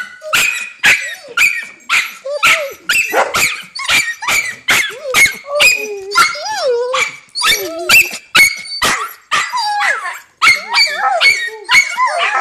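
Dogs barking in a rapid excited string, about two barks a second, with wavering whines mixed in through the second half: an excited greeting as their owner comes home.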